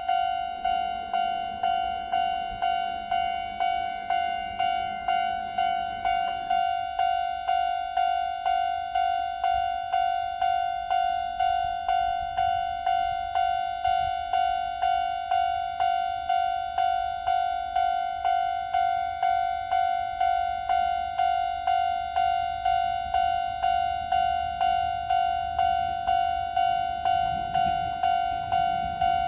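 Japanese railway level-crossing warning bell ringing its steady "kan-kan" at about one and a half strikes a second, each strike a ringing tone that fades before the next. A low rumble sits under it at the start and stops suddenly about six and a half seconds in; another grows near the end.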